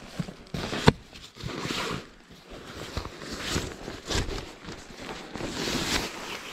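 Irregular rustling, scraping and handling of camping gear while camp is set up, with one sharp knock about a second in.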